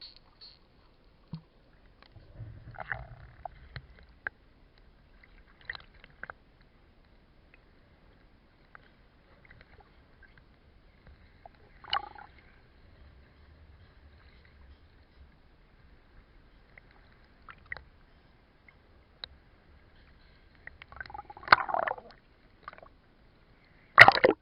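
Water sounds heard through an underwater camera: scattered short clicks and gurgles, with a low rumble a couple of seconds in and louder sloshing bursts near the end.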